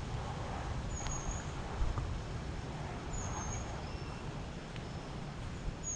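A small bird's high, thin call, a short slurred note repeated three times about two seconds apart, over the soft swish of footsteps through tall grass and a low steady rumble.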